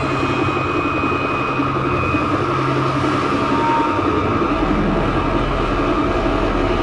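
Contemporary chamber quartet of violin, saxophone, accordion and percussion playing a dense, steady, noise-like texture rather than a melody, with a low drone coming in about four and a half seconds in.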